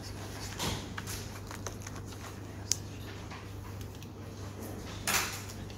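Handling noise from a Dremel VersaTip 2000 butane soldering iron: light clicks and rustles, with one sharp click about halfway through and a short rustling burst near the end, over a steady low hum.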